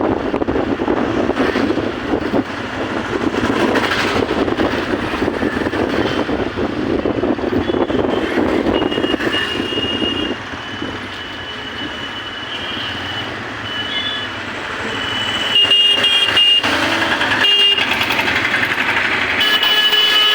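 Train running, a loud rumbling noise that eases about halfway through. From then on, irregular high-pitched tones come and go, some brief and some lasting about a second.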